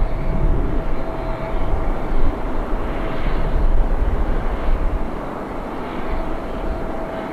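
Boeing 777's twin jet engines running as the airliner taxis: a steady deep rumble with a thin whine, easing off a little over the last couple of seconds.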